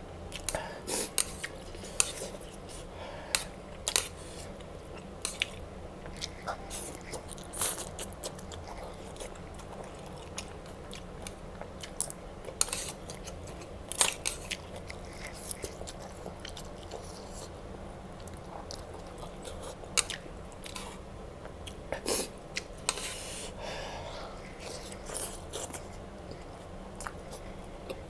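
Close-miked eating of spicy instant noodles with chopsticks: chewing, broken by irregular sharp clicks and taps.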